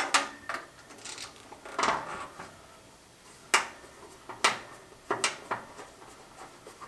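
Scattered sharp metallic clicks and clinks of pliers and wiring hardware being handled, about eight in all at uneven intervals.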